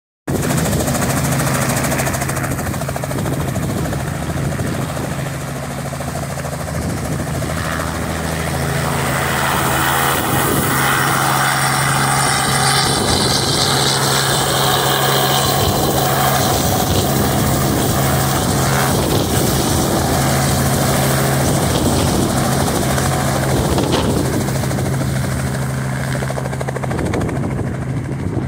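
Robinson light helicopter running at takeoff power, a steady low rotor beat and engine hum as it lifts off, hovers and flies away low. The sound swells about a third of the way in and eases a little near the end.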